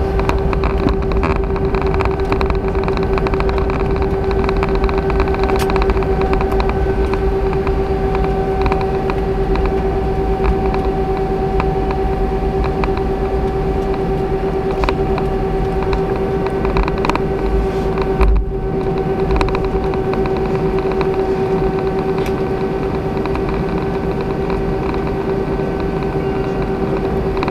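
Cabin noise of an Airbus A319 taxiing: a steady engine hum and rumble with a constant mid-pitched tone. Occasional light knocks sound through it, and there is a heavier thump about two-thirds of the way through.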